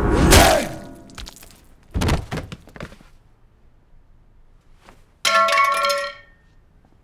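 Fight-scene impact sounds: a heavy hit just after the start, a short clatter of knocks about two seconds in, then a metallic clang that rings for about a second near the end.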